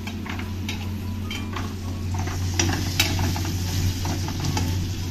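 Metal spatula stirring and scraping sliced sausage, mushrooms, capsicum and onion in an aluminium kadai, with irregular clinks and scrapes and a frying sizzle that grows louder about halfway through, over a steady low hum.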